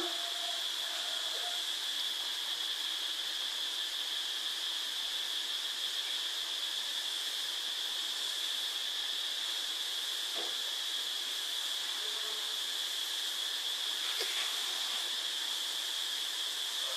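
Steady hiss with a constant high whine running through it. There are a couple of faint, short squeaky tones about a second in and small soft clicks later on.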